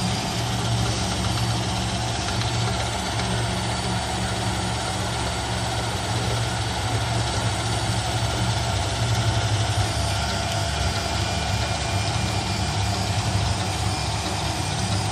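3D printer running, with a steady mechanical hum.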